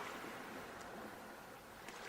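Sea waves washing on a shore: the wash fades away through a lull between waves, with a couple of faint ticks of water, and the next wave builds right at the end.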